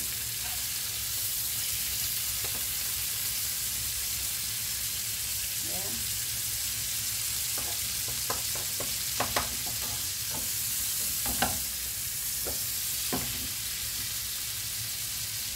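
Steaks sizzling and frying in a pan, a steady hiss as they sear. Several light clicks and taps of a utensil against the pan come through the sizzle, mostly in the middle of the stretch.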